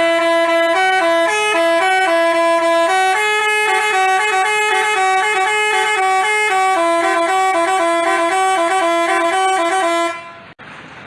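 Telolet bus horn (a basuri-type multi-tone musical horn) playing a tune of short stepped notes, stopping about ten seconds in.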